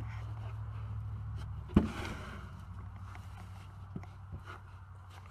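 Low steady rumble of handling and wind on a handheld camera's microphone as it is moved under the car, with one sharp knock a little under two seconds in and two light clicks later.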